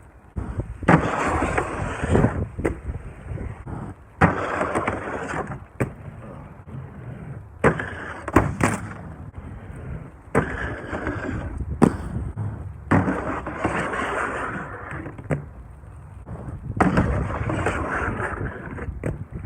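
Inline skates with 3D-printed PLA sole frames grinding along a composite deck ledge: about six scraping slides of a second or two each, with sharp clacks as the frames hit the ledge and the skates land.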